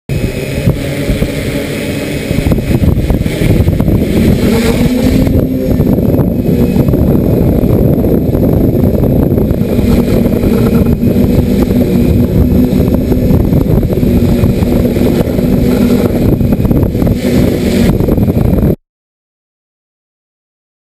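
Bergen R/C folding hexacopter's six electric motors and propellers humming, stepping up in pitch about three seconds in and then holding steady, under heavy gusting wind buffeting the microphone. The sound cuts off suddenly near the end.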